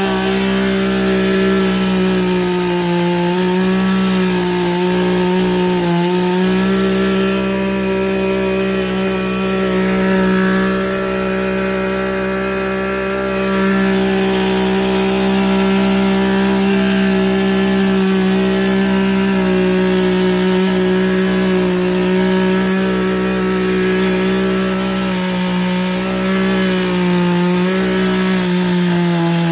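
Poulan Pro two-stroke chainsaw running steadily at a fairly constant speed, its pitch wavering slightly now and then.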